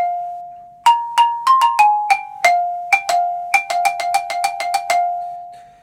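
A melodic exercise played on a mallet keyboard instrument, xylophone-type bars struck one note at a time, each ringing briefly. After a short pause about a second in, the notes come in a quicker run between about three and five seconds, and the last note rings out and fades.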